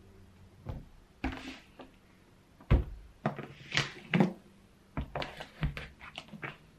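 Thick hardcover law books set down one after another on a wooden table: a series of dull thuds, the loudest about three seconds in, with softer handling and sliding noises between.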